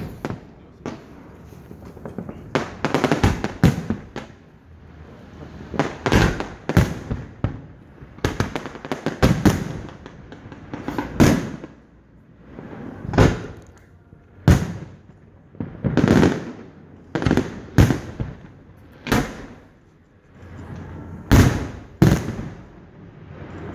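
Aerial fireworks shells bursting in an uneven run of loud bangs, about one every second, each trailing off in an echoing rumble.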